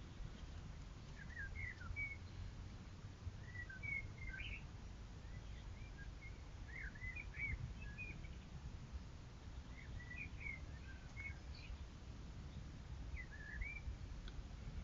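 A songbird singing short warbling phrases of a few quick slurred notes, one phrase about every three seconds, over a low steady rumble from the trail camera's microphone.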